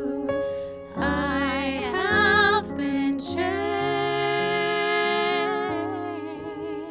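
Two women singing the long final held notes of a ballad duet with vibrato, over sustained piano chords.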